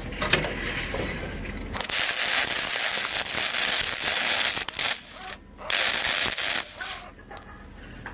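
A few sharp clicks, then a loud hiss lasting about three seconds that cuts off suddenly, and a second, shorter hiss a little later.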